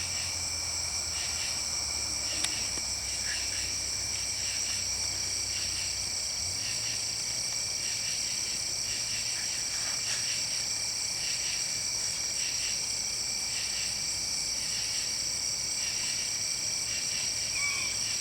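Short squeaks from an unidentified animal, repeating regularly about once a second, over a steady high-pitched insect chorus of crickets.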